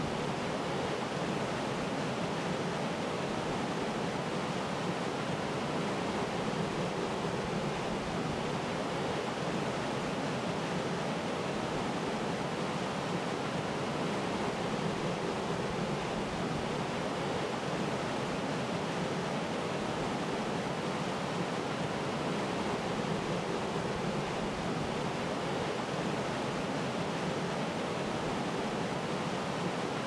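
Waterfall rushing steadily, a constant hiss of falling water with no breaks.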